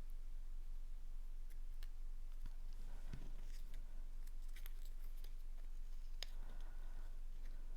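Light handling of paper craft pieces: scattered faint clicks and rustles, with a soft thump about three seconds in and a sharper click a little after six.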